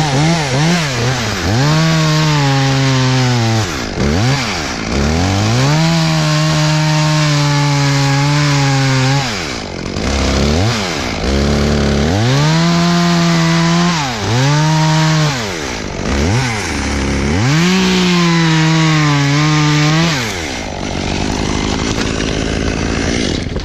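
Chainsaw revved to full throttle in repeated long bursts, holding a high steady pitch while cutting and dropping back toward idle between them, about five times. In the last few seconds the engine note gives way to a rougher, steadier noise.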